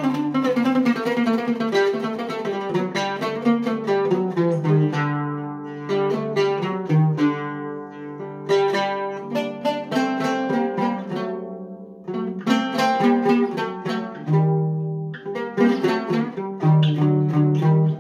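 Solo oud improvisation: a quickly picked melody of many short plucked notes, easing around six to eight seconds in to fewer notes left ringing, then picking up pace again.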